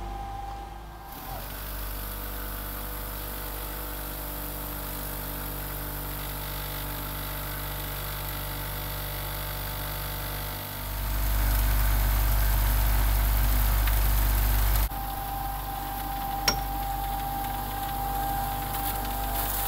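A motor running steadily with a low, even hum. About eleven seconds in a deep rumble swells up, holds for a few seconds, then cuts off suddenly, with a single sharp click shortly after.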